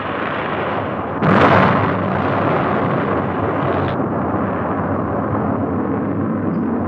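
Rocket explosion on an old film soundtrack: a sudden louder blast about a second in, then a steady rumble that carries on.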